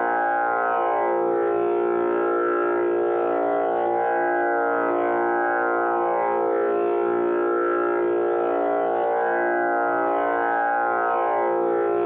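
Tanpura drone pitched to A#, its strings plucked in a continuous cycle so the notes overlap into one steady, unbroken drone. The buzzing overtones of the jawari bridge swell and fade every few seconds as each string is sounded.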